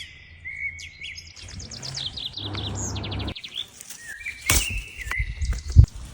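Songbirds singing in quick repeated chirps and trills, the background changing abruptly twice as if spliced together. Two knocks near the end, the second a loud low thump.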